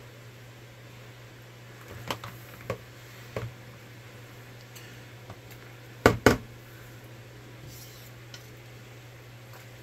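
Wire spider strainer knocking against the stock pot and bowl while spent vegetables and chicken bones are scooped out of the broth: a few light taps, then two sharp knocks in quick succession about six seconds in, over a steady low hum.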